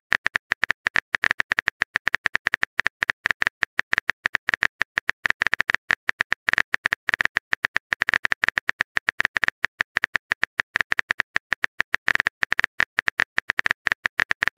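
Typing sound effect of a phone keyboard in a texting-story app: rapid, uneven key taps, several a second.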